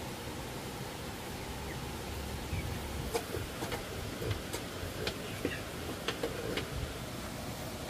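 Light clicks and taps of animals moving about a bamboo-slatted, straw-bedded pen, clustered in the middle of the stretch, with a few faint bird chirps over a steady background hiss.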